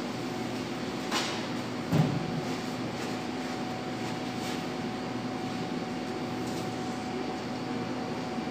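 Steady machine hum of kitchen ventilation, with a brief rustle about a second in and a single thump about two seconds in, the loudest sound.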